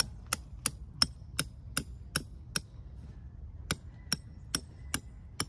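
Hammer driving a tent stake into the ground in steady, sharp blows, about two and a half a second: a run of eight, a pause of about a second, then five more.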